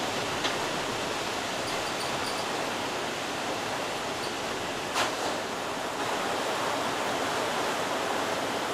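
Heavy thunderstorm rain falling steadily on a bus, heard from inside the cabin as an even rushing hiss, with one sharp click about five seconds in.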